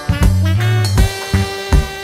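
Background music in a swing-jazz style, with held horn-like notes over a steady drum beat.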